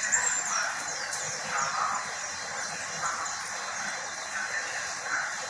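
Pet white-eye (pleci) giving short, high chirps, mostly in the first second or so and again near the end, over a steady rushing background noise.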